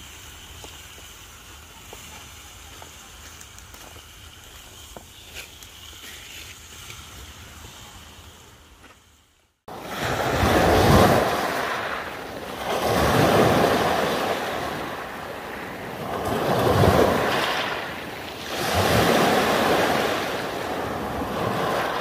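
Faint background with a few small ticks, then an abrupt cut about ten seconds in to surf washing in, in loud swells roughly every three seconds, with wind on the microphone.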